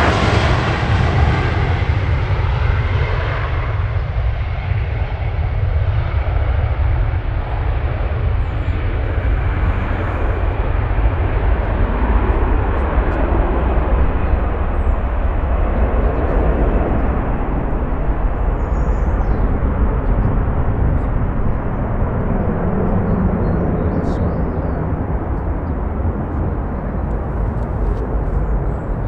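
Jet engines of a Jet2 Boeing 737-800 at takeoff thrust: a loud, steady rumble as the airliner passes close on its takeoff roll, its hiss dulling steadily as it rolls away and climbs out.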